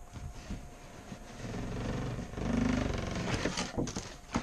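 Cardboard lid of a large model kit box being pulled up and off, the lid rubbing along the box walls in a swelling scrape, loudest about halfway through, followed by a few light knocks of cardboard near the end.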